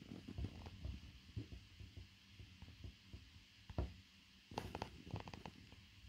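Irregular soft thumps and a few scrapes of a snow shovel digging through deep snow, muffled through window glass, with a cluster of sharper strokes about four and a half to five and a half seconds in.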